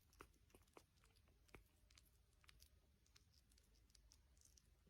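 Near silence with faint, irregular small clicks, about a dozen scattered through.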